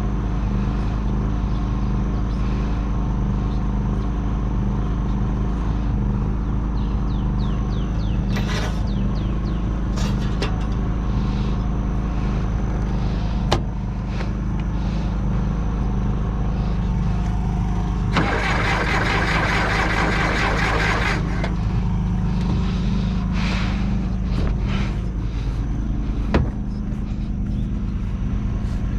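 John Deere 450C crawler dozer's four-cylinder diesel engine running steadily, with a few clicks and knocks. A burst of hiss lasts about three seconds past the middle.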